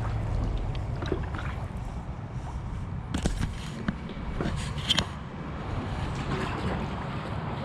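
Kayak being paddled through water, with paddle splashes and water trickling, and a few sharp knocks around three to five seconds in.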